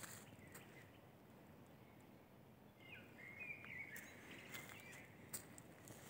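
Near-quiet woodland with a faint bird call about three seconds in: a short, chirping phrase lasting about two seconds.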